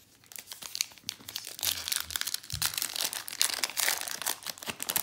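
Crinkling of a trading card pack's wrapper being handled, a rapid run of small crackles.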